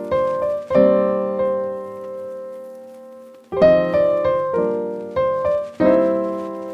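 Piano music: chords struck and left to ring, one held and slowly fading for more than two seconds before a new run of chords comes in.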